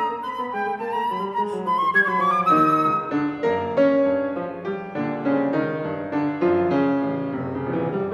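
Silver concert flute playing a classical melody over a Steinway grand piano accompaniment. The flute line rises over the first couple of seconds, then both move in quick short notes.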